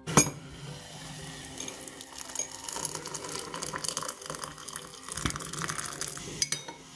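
Water poured from a glass electric kettle into a ceramic mug over a teabag: a steady splashing trickle. A sharp knock comes just as it starts, and a few small clinks follow later.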